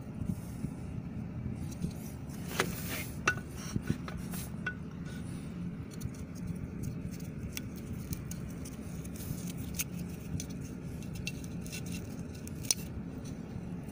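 Rope being untied from an outboard motor's lower unit, with small clinks and knocks of metal over a steady low hum. A few sharper knocks come about three seconds in and near the end.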